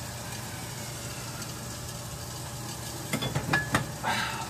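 Steady sizzle of beef frying in an oiled pan, over a low steady hum. A few sharp clicks and knocks come in the last second and a half.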